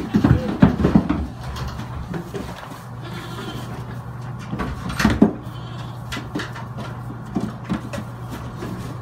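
Goat kids bleating, with one loud bleat about five seconds in. A run of knocks and thumps in the first second, scattered small clicks, and a steady low hum underneath.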